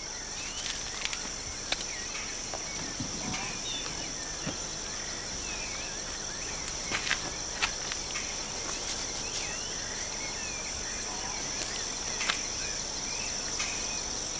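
Steady, high-pitched insect chorus, with many short chirping calls and a few sharp clicks over it.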